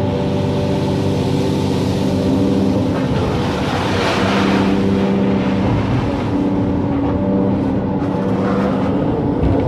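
Excavator's diesel engine running steadily as it works, its note shifting slightly, with a hiss that swells and fades about four seconds in.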